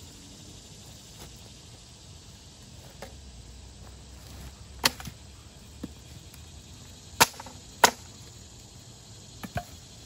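A few sharp wooden cracks and knocks from a dead Virginia pine branch being worked against a wooden sawhorse. Three loud ones stand out in the middle, the last two close together, with fainter knocks around them.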